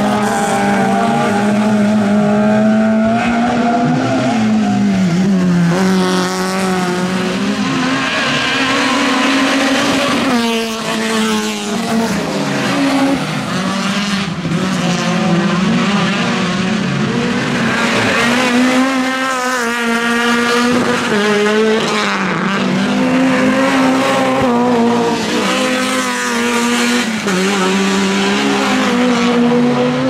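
Rallycross cars, among them a Renault Clio and a Peugeot 206, racing through corners one after another. Their engines rev hard, the pitch climbing and dropping again and again with throttle lifts and gear changes.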